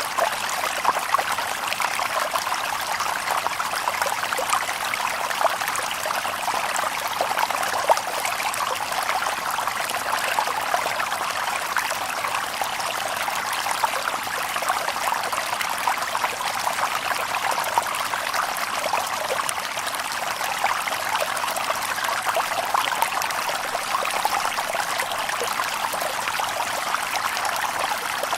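Shallow stream babbling and trickling over stones, a steady, even flow full of small splashes.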